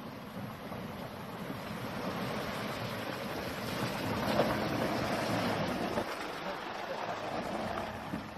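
Toyota Hilux pickup driving through a shallow river ford: the engine running under the rush and splash of water thrown up by the tyres. It grows louder as the truck passes close by about four seconds in, then eases off as it climbs out onto the track.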